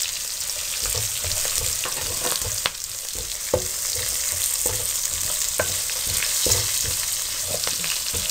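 Spices and green chillies sizzling in hot oil in a wide metal pan, stirred with a wooden spoon that scrapes and clicks against the pan now and then.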